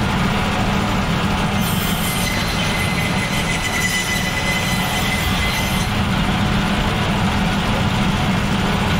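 Meat-cutting band saw running with a steady low motor hum while its blade cuts lengthwise through a large fish. A thin high whine joins in for about four seconds in the middle of the cut.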